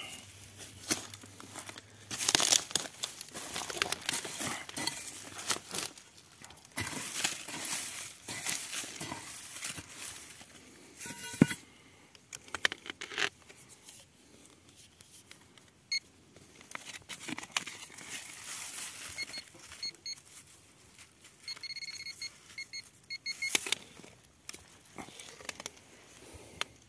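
Irregular scraping and crunching of soil being dug and sifted through by hand, with short repeated beeps from the metal detector about two-thirds of the way in, signalling a buried metal target.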